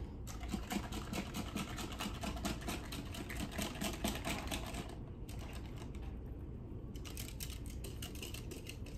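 Wire whisk beating cake batter in a glass mixing bowl, its wires clicking rapidly and steadily against the glass. The clicking eases off about five seconds in and picks up again near the end.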